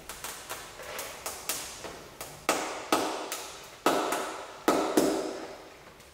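Releasing a glue-pull tab from a car's hatch panel with an alcohol spray bottle: a quick, irregular string of about fifteen sharp taps and clicks, each ringing briefly, loudest in the middle.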